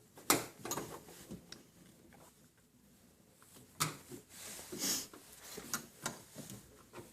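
A beer tap being tightened onto its shank with a faucet wrench: scattered metal clicks and short scrapes, with a brief rasp about five seconds in.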